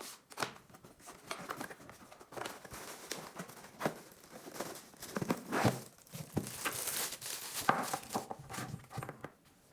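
Packaging rustling and crinkling, with bits of tearing and scattered small clicks and taps, as a boxed power strip is unwrapped and handled.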